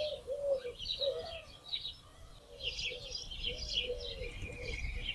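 Small birds chirping in a busy, high twitter, with a lower short call repeated about twice a second beneath it.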